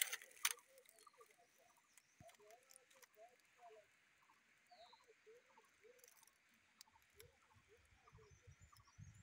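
Near silence with faint animal calls: many soft, short chirps repeating irregularly, and a single higher bird chirp about halfway through. A few soft low thumps come near the end.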